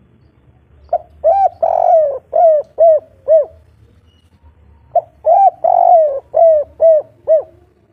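Spotted dove cooing: two song phrases about four seconds apart, each opening with two short coos, then one longer coo and three short coos after it, the three-note ending that keepers call 'kuk 3'.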